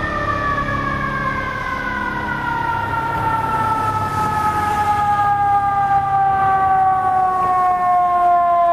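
Fire engine siren winding down in one long, slowly falling tone, the coast-down of a mechanical siren.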